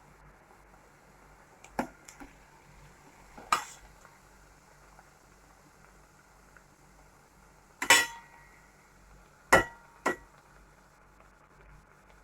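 A metal spoon clinking against a frying pan while snacks fry in oil: about six separate sharp clinks, the loudest two in the second half, a couple of them leaving a brief metallic ring.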